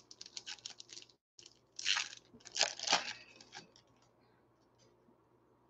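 Foil wrapper of a trading-card pack being torn open by hand: a run of quick crinkling crackles, then two louder rips about two and three seconds in, stopping after about three and a half seconds.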